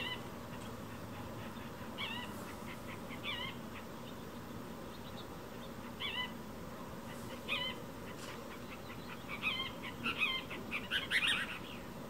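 Cassin's kingbird calling: short, wavering two-part calls every second or two, then a quick run of several louder calls near the end.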